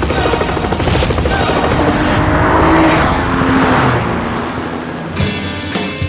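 Lexus GS sedan's engine revving hard as it drives past at speed, the sound swelling to a peak about three seconds in and then fading, with a low-flying helicopter's rotor chop mixed in.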